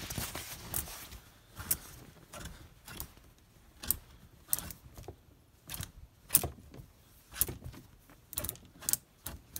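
Clothes hangers clicking and scraping along a rail as hanging shirts are pushed about, with fabric rustling: about a dozen irregular sharp clicks.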